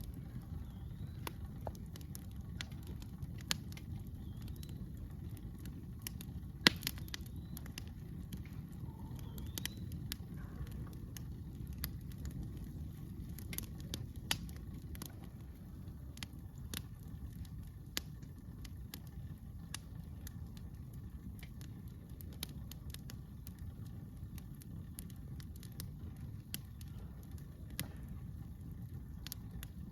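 Wood campfire crackling: irregular sharp pops and snaps over a steady low rumble, with one louder pop about seven seconds in.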